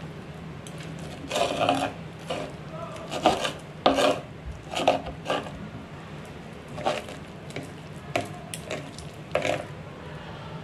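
Fork and knife cutting through an egg and enoki mushroom omelette, the metal scraping and rubbing on the tray in short, irregular strokes over a low steady hum.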